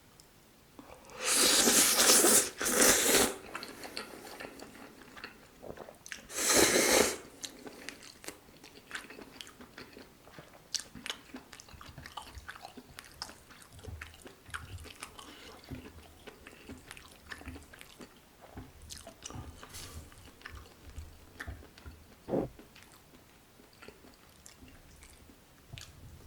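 Close-miked eating of carbonara Buldak fire noodles with chewy small octopus: three loud bursts of eating noise, about a second each, in the first seven seconds, then steady chewing with many small wet clicks.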